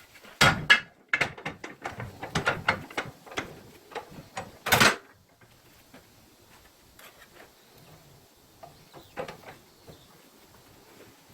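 Irregular metal knocks and clunks as a homemade bench vise is handled and worked. The knocks come thick and fast for the first five seconds, with the loudest near the start and about five seconds in, then only a few softer knocks later on.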